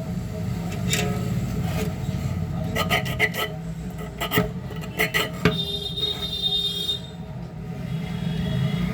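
Scraping and rubbing with a run of sharp clicks, as of small hand tools working on a plastic Bluetooth neckband being taken apart, then a thin high tone for about a second and a half, over a steady low hum.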